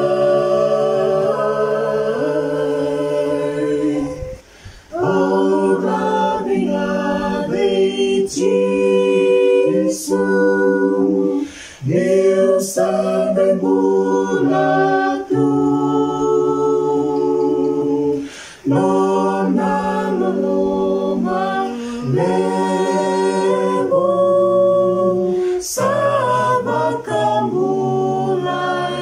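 A small mixed group of two men and three women singing unaccompanied in harmony, holding long notes in phrases with brief pauses for breath between them.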